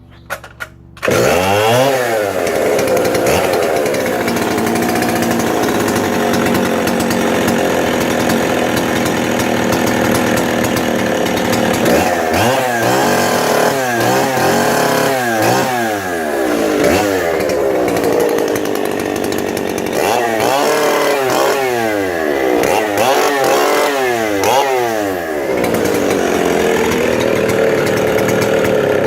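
Stihl 07S 75cc two-stroke chainsaw firing up about a second in after a couple of clicks, then running loud. It is revved up and down in several throttle blips and settles to a steady idle near the end.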